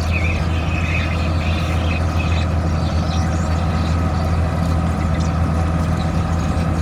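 Heavy construction machinery's engine running steadily at constant speed, a low, even hum.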